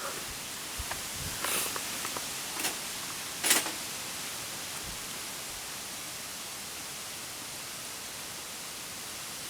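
Wood campfire burning with a steady hiss and a few sharp crackles and pops, the loudest about three and a half seconds in.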